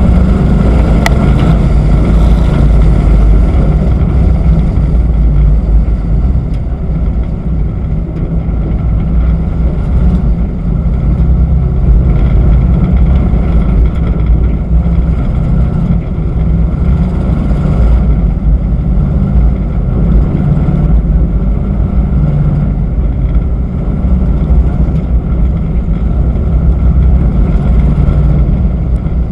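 Race pickup truck's engine running at low, steady throttle, a loud deep drone with small rises and falls, heard from onboard the truck.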